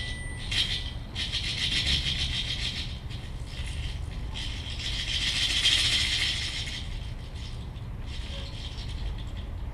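Amplified dry plant material shaken and scraped through loudspeakers, in several bursts of dense high rattling a second or a few seconds long, with short gaps between, over a steady low hum.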